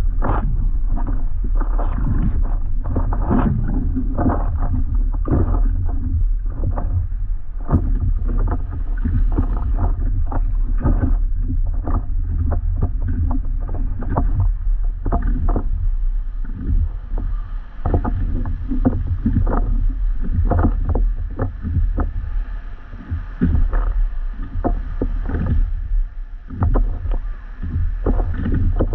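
Water splashing and slapping irregularly around a paddleboard on the move, over a steady low rumble.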